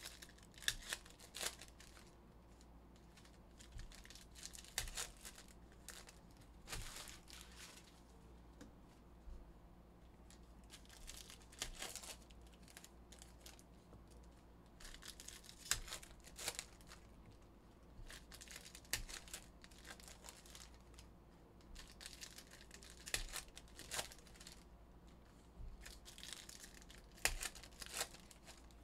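Trading-card pack wrappers being torn open and crinkled, in short faint bursts every three to four seconds.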